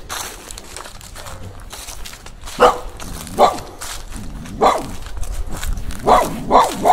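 A dog barking: about six sharp barks spread over the second half, the last few coming close together.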